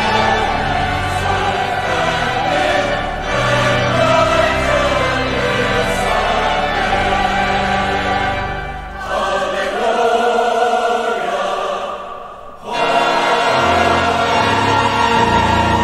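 Large church choir singing a sacred anthem, accompanied by a pipe organ. About nine seconds in, the low bass notes drop out and the sound thins. The music then dips almost to a pause before the full choir and organ come back in.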